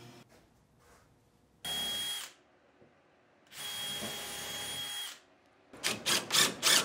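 Cordless DeWalt drill running in two short bursts with a steady whine, drilling countersunk screw holes through a pine drawer side into a wooden corner block. Near the end, a cordless DeWalt impact driver drives screws in a quick series of loud pulses.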